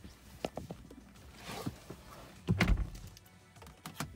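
Clicks and knocks of someone climbing into a car's driver's seat, with one heavy thud about two and a half seconds in.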